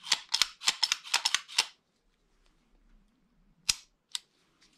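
Handling noise from unpacking a pistol: a quick run of about eight sharp crinkles and clicks in the first two seconds, then a single click near the end and a fainter one after it.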